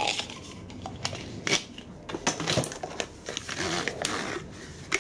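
Blue plastic tube cases for cutting tools and steel tooling being handled: irregular clicks, rattles and scrapes as a reamer is slid out of its plastic sleeve and the cases knock together.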